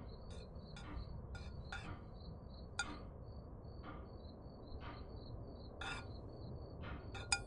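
Forks clinking and scraping on dinner plates: about ten light, scattered metallic clinks, one sharper about three seconds in and another near the end. Under them runs a steady, evenly pulsed high chirping.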